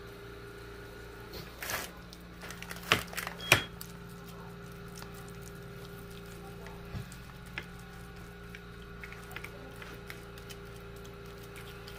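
Silicone spatula spreading thick cheesy dip across a metal baking sheet: soft scraping and dabbing, with a few sharp knocks of the spatula or pan about three seconds in, over a steady hum.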